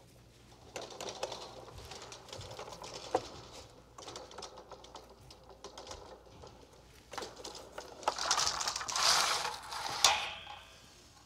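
Handling noises of equipment being moved and set up: rustling and scraping with irregular clicks and knocks, a sharp knock about three seconds in, and a louder stretch of scraping near the end that finishes in another sharp knock.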